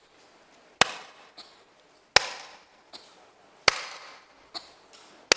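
Hand claps: four sharp single claps about a second and a half apart, each trailing off in room echo. They are cues for a person to cough on each clap.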